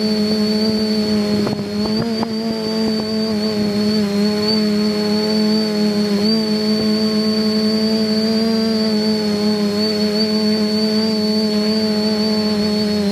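Motors and propellers of a TBS-frame quadcopter humming steadily in flight, heard from its onboard camera, with a high whine above the hum and the pitch wavering slightly with throttle. A few faint clicks come about two seconds in.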